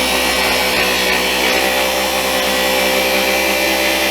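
Handheld electric massager running steadily on a patient's back muscles, a constant motor hum that holds one pitch.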